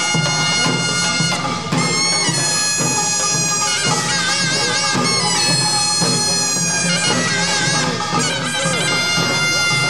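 Korean pungmul band playing pangut: a loud, reedy shawm melody (taepyeongso) with wavering vibrato over a driving rhythm of hand-carried drums.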